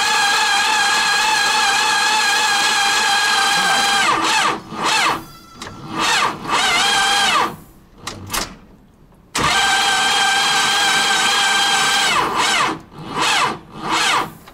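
T-40 tractor's electric starter whining steadily for about four seconds and winding down in pitch when released, then several short stabs. It whines for about three more seconds from nine seconds in, winds down, and gives two more short stabs. The diesel does not catch.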